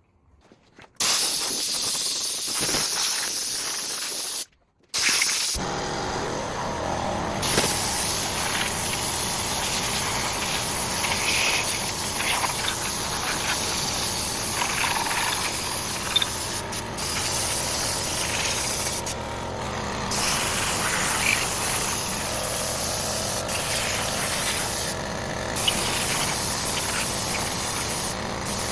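Loud, steady hissing noise that starts abruptly about a second in, cuts out briefly around five seconds, then carries on.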